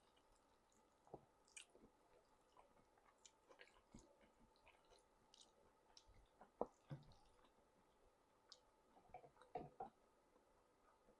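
Faint, close-miked chewing: scattered wet mouth clicks and smacks at an irregular pace, loudest a little past halfway and in a cluster near the end.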